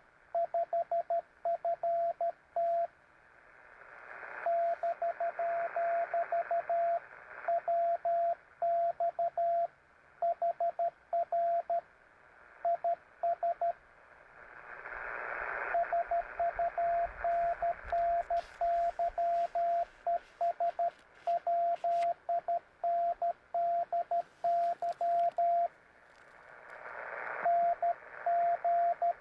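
Morse code (CW) on an amateur radio transceiver: a single mid-pitched beep keyed in dots and dashes, sent in runs of characters. In the pauses between sendings, radio hiss swells up and is cut off when the keying starts again.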